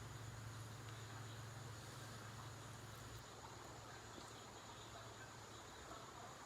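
Faint steady background: an even hiss with a low hum that drops a little about three seconds in, and a thin steady high-pitched tone.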